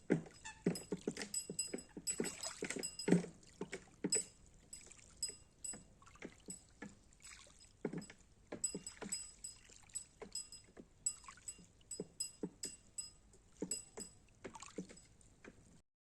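Handmade buoy bobbing on lake water: irregular hollow knocks and metallic clinks, several a second, with a bright ringing that hangs after each clink. The sound cuts off suddenly near the end.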